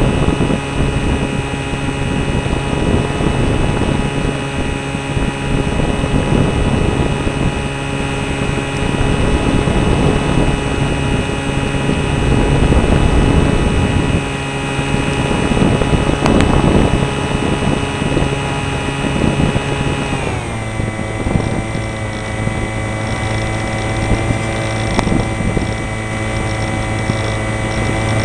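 RC airplane's motor and propeller running steadily with wind rushing over the microphone; about twenty seconds in the pitch drops and holds lower as the motor slows.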